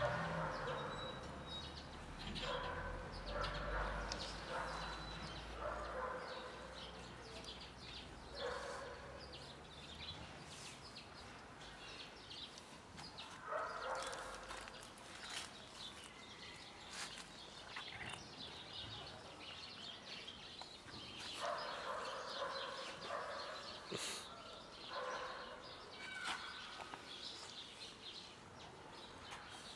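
Black cat meowing, about eight short meows spaced a few seconds apart.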